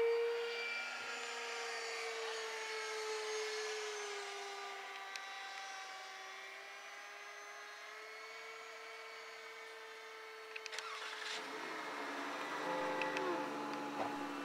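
Radio-controlled model airplane's motor and propeller whining steadily overhead, the pitch sagging a little a few seconds in and rising again. Near the end it gives way, after a few clicks, to a different steady whine from a Durafly Vampire electric ducted-fan jet model.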